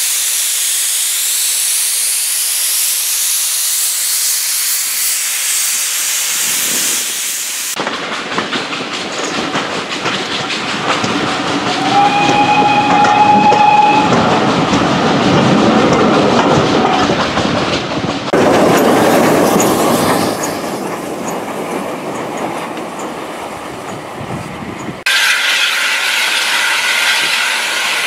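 A saddle-tank steam locomotive blowing off steam, a steady loud hiss, for the first eight seconds or so. Then the running noise of a moving train heard from a carriage window, with a short whistle about twelve seconds in.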